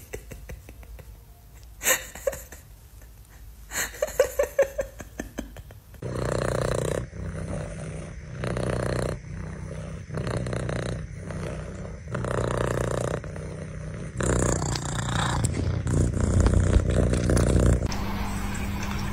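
Domestic cats: a few sharp clicks and a brief call in the first few seconds, then purring that swells and fades in regular pulses a little over a second apart, heaviest near the end.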